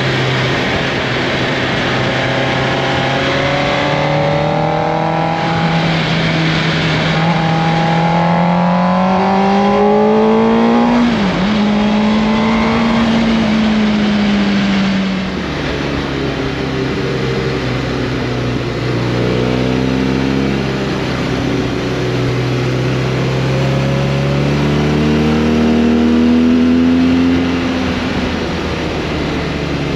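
Motorcycle engine accelerating, its pitch climbing, with a quick dip at a gear change about eleven seconds in. The pitch falls back as the throttle eases a few seconds later and climbs again near the end, with wind rushing over the microphone throughout.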